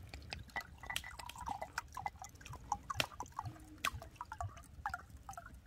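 Soju poured from a bottle into a small glass: quiet glugs and drips with scattered light clicks of glass and tableware.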